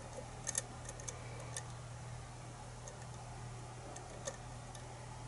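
Faint, irregular small metallic clicks of a lock pick working the pins of a pin-tumbler KIK-cylinder challenge lock under tension, bunched in the first couple of seconds with a few more later. A steady low hum runs underneath.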